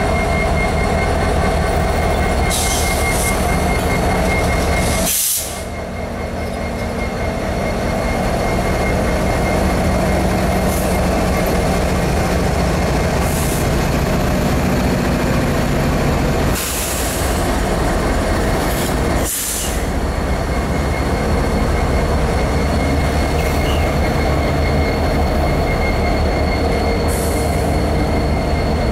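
A freight train's diesel locomotives pass close by: Kansas City Southern EMD SD70ACe units and a Norfolk Southern GE D9-40CW, engines running, followed by intermodal flatcars rolling past on the rails. A steady high-pitched wheel squeal runs under the rumble, with a few brief hissing bursts.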